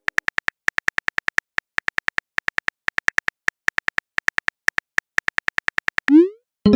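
Simulated phone-keyboard key clicks in quick succession, about seven a second, as a text message is typed. About six seconds in, a short rising swoosh marks the message being sent, followed near the end by a ringing chime-like note.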